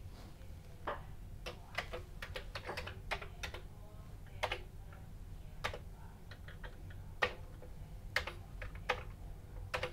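Keystrokes on a Commodore 64 keyboard: separate irregular clicks, about two a second, with short pauses between them as the keys are pressed one at a time.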